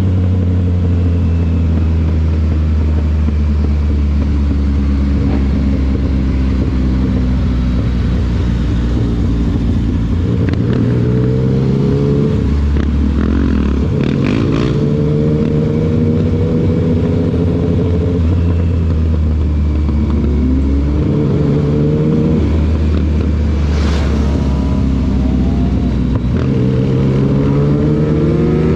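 Yamaha MT-09 inline three-cylinder engine holding a steady pitch at first, then pulling up in pitch several times. Each rise is cut by a quick drop as it shifts up with the quickshifter.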